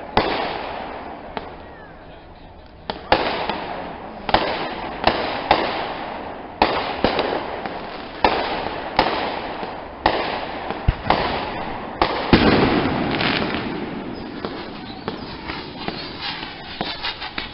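Aerial fireworks bursting in a run of sharp bangs about one a second, each trailing off in an echo. There is a heavier bang about twelve seconds in, then a quicker patter of smaller pops near the end.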